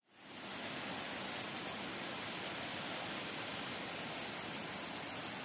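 Steady, unbroken hiss of water, fading in quickly at the start and holding even throughout.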